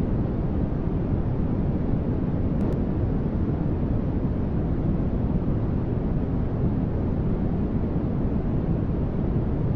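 Continuous generated static noise of the kind sold as white noise for sleep, steady and unchanging. It is a deep, even rush weighted toward the low end, more rumble than hiss.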